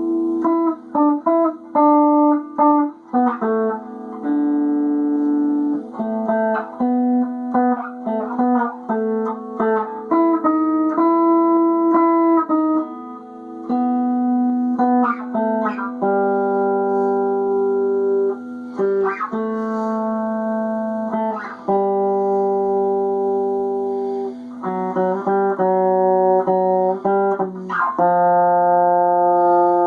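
Guitar played solo: a meandering run of single notes and short phrases, some notes held for a second or two, with brief pauses between phrases.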